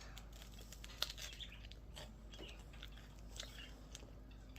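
Faint close-up mouth sounds of chewing and biting a chocolate ice cream cone, with small crisp crackles from the wafer cone. The sharpest click comes about a second in.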